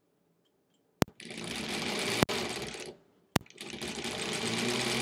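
1938 Kenmore Model 38 electric sewing machine stitching through pieced fabric in two runs: it starts about a second in with a sharp click, stops about halfway through, then starts again after another click and keeps running.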